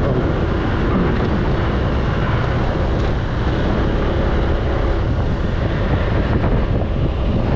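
Steady wind rushing over the microphone with the engine and road noise of a motor scooter being ridden, and other motorbikes' traffic around it.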